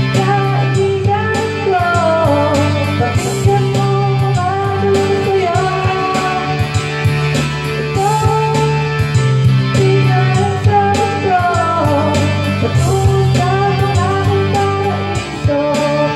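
A song playing, with a sung melody over a steady backing of bass and guitar.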